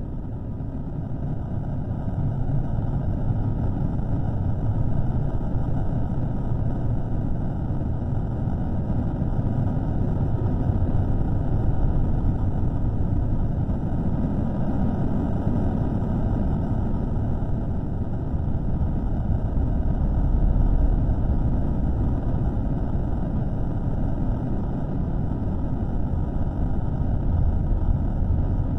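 A steady low rumbling noise with no distinct tones or events, slowly swelling and easing. It is a microphone recording slowed down to about a third of its speed.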